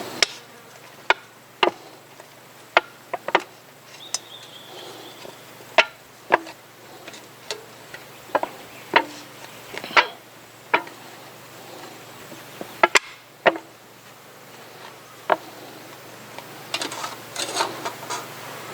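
Hammer strikes on a metal spoon being cold forged: about twenty sharp blows at uneven intervals, a few leaving a brief metallic ring, the longest about four seconds in.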